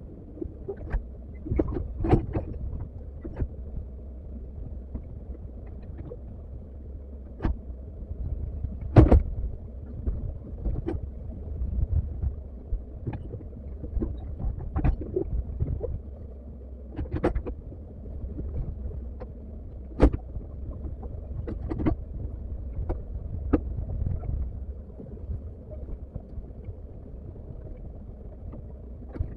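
Komatsu hydraulic excavator working, its engine giving a steady low rumble. Irregular sharp knocks and clanks sound over it, two of them much louder than the rest, about a third and two-thirds of the way in.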